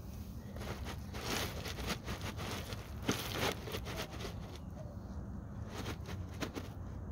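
Small pea gravel crunching and shifting as a black plastic sprinkler valve box is lifted and rocked in its gravel bed, letting the gravel run in underneath the box. Irregular crunches and scrapes, with one louder crunch about three seconds in.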